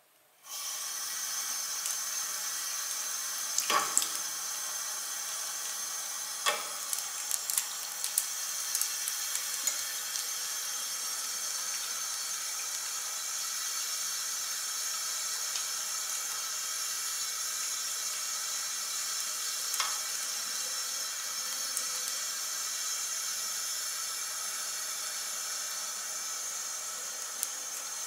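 Single-lever bathroom tap turned on about half a second in, then water running steadily into the sink basin. Over the running water come a few sharp clicks as the long fingernails knock together during soapy hand washing, the loudest about 4 seconds in and most between 4 and 10 seconds.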